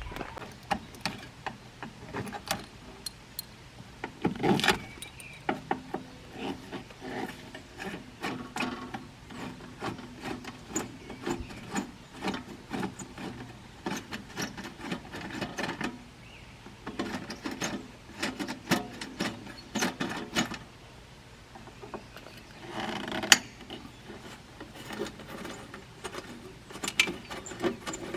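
Hand work on a car's license plate and its fastenings: a long run of small irregular clicks, knocks and scraping rubs of tools on metal and plastic.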